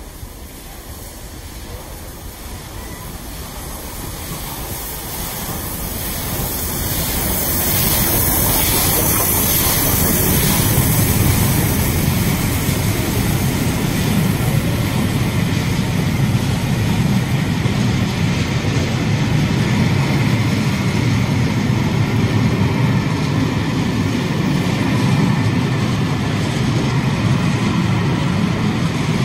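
Steam locomotive 35018 British India Line, a rebuilt Merchant Navy class Pacific, approaching and passing close by with its train. It grows louder over the first eight seconds or so, then gives way to the steady rumble and clatter of the carriages rolling past.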